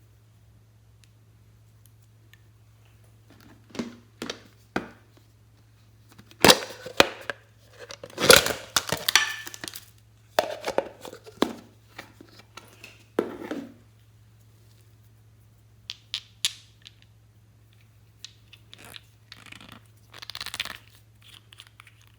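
Slime being worked by hand, in irregular bursts of crackling, sticky tearing sounds with quiet gaps between, loudest a few seconds in.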